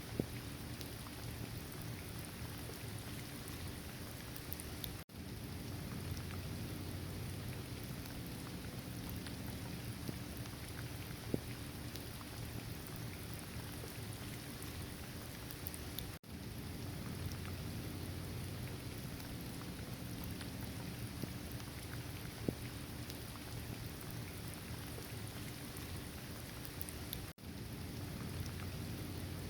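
Steady rain falling, an even hiss with scattered sharp drop ticks. The sound briefly drops out three times, about every eleven seconds.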